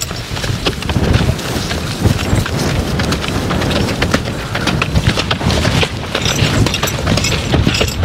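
A draft horse's hooves clopping over soft field ground, with a loaded wooden stoneboat scraping and knocking along behind it in a steady run of clatter.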